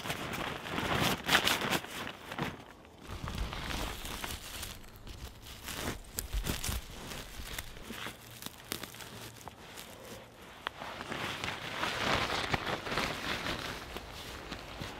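Crinkling, rustling handling noise close to the microphone, with scattered sharp clicks; it is louder about a second in and again for a few seconds near the end.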